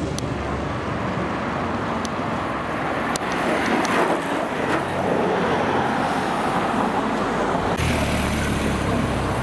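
A time-trial cyclist and a following car passing close by: a rush of tyre and engine noise that swells and sweeps down in pitch about four seconds in.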